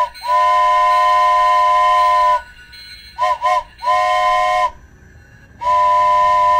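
Steam train whistle blowing a steady chord in a pattern of blasts: a brief toot at the start, a long blast of about two seconds, two quick toots, a shorter blast, then another long blast near the end.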